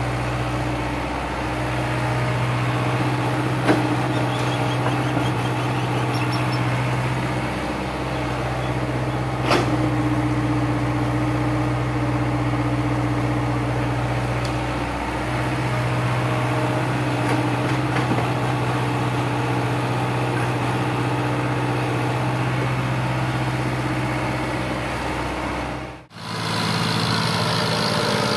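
Diesel engines of a Hyundai mini excavator and nearby tractors running steadily as the excavator digs, with two sharp clanks about four and nine and a half seconds in. Near the end the sound drops out briefly, and a different tractor engine follows.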